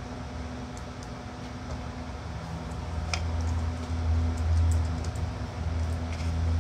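Light clicks and knocks of wooden clamp blocks and metal pipe-clamp hardware being handled and set, with one sharper click about three seconds in. Under it runs a steady low hum that grows a little louder midway.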